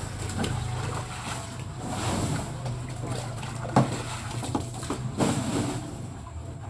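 Water running from a garden hose and splashing into a muddy pit, over a steady low hum, with a couple of sharp knocks near the middle.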